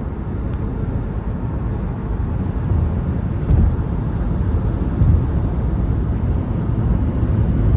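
Steady low road rumble of a car driving at highway speed, tyre and engine noise heard from inside the car, with a couple of brief low bumps partway through.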